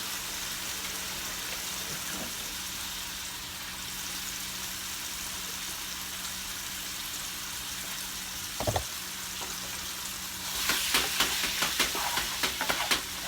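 Chopped chicken thighs and onions frying in a pan over high heat, a steady sizzle. A single knock about nine seconds in, then a quick run of clicks and scrapes near the end as the meat is stirred in the pan.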